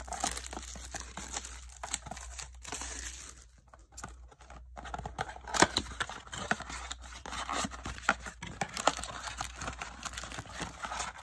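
A cardboard trading-card blaster box being torn open and handled: irregular tearing, crinkling and scraping with sharp clicks, with a short lull about four seconds in.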